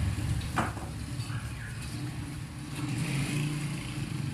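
Steady low motor-vehicle engine rumble, with one sharp click about half a second in.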